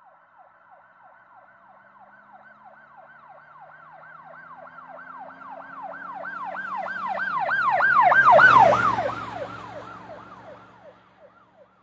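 Emergency vehicle siren wailing in fast up-and-down sweeps, about three a second, as the vehicle approaches and passes: it grows louder to a peak about three-quarters of the way in, then drops in pitch and fades away, with the vehicle's engine heard passing underneath.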